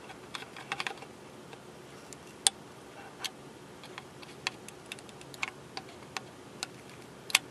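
Irregular small clicks and ticks of a soldering iron tip working at the solder joints of a chip on a circuit board while desoldering it, one pin still not letting go, over a faint steady hiss. Two of the clicks, about two and a half seconds in and near the end, are sharper than the rest.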